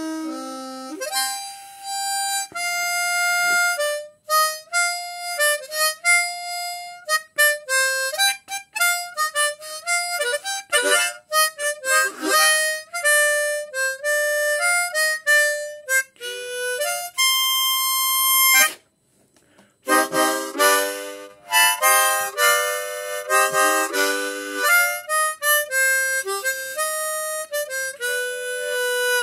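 Hohner Folk Master ten-hole diatonic harmonica, retuned from C major to minor with holes 2, 5 and 8 lowered a semitone, played as a tune of single notes and chords, with a short break about two-thirds of the way through.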